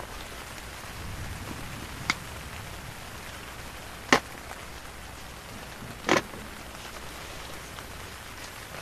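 Light rain falling steadily, with three single sharp taps about two seconds apart.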